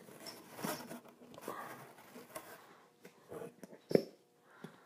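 Handling noise from the packaging of a collapsible water bottle being turned over and worked at: scattered rustling and light clicks, with one sharp click about four seconds in.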